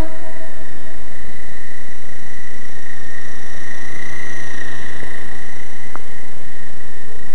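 Radio-controlled model helicopter flying close overhead: a steady high-pitched whine from its motor and rotor that wavers slightly as it passes, over a loud hiss. A short tick about six seconds in.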